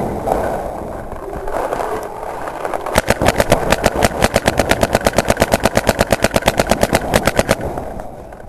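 Paintball marker firing a rapid, even string of shots, roughly ten a second, starting about three seconds in and running for about four and a half seconds.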